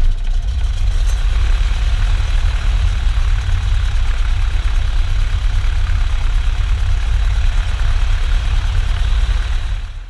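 Cessna 182P Skylane's six-cylinder piston engine and propeller running steadily at low power just after start-up. The level drops near the end.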